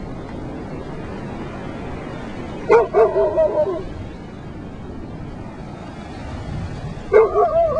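Golden retriever alarm-barking at a rock on the beach: a quick run of pitched barks and yips about three seconds in, and a second run near the end, over a steady hiss of surf and wind.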